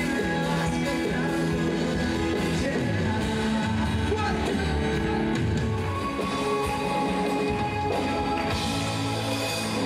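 Live pop-rock band music with a male lead vocalist singing, played by a full band of guitars, keyboards and drums.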